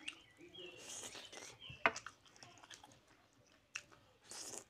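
Eating sounds: a hand squishing curry-soaked rice and chicken, then wet chewing and mouth smacks, with scattered sharp clicks, the loudest about two seconds in.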